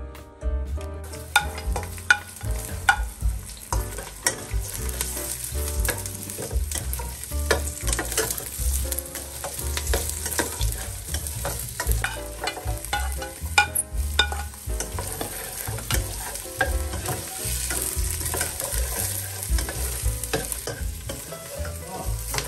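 Food sizzling in hot oil in a pan as it is stirred, the utensil clicking and scraping against the pan. The sizzle and stirring start about a second in and keep going with irregular sharp clicks.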